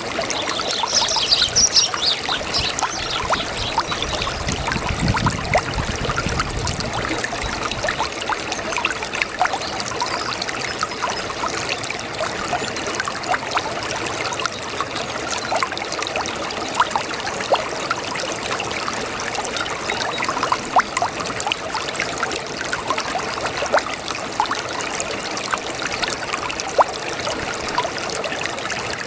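Small brook babbling steadily over stones, a constant trickling full of tiny splashes and plops.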